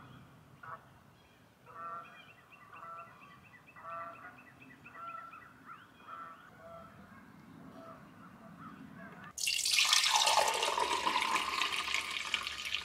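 Faint honking bird calls repeat about once a second, with a small bird's rapid trill behind them. About nine seconds in, a kitchen tap is turned on and water runs hard into the sink, much louder than the calls.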